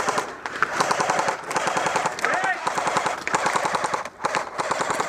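Airsoft guns firing rapid automatic bursts, a fast stream of sharp cracks with brief breaks between bursts.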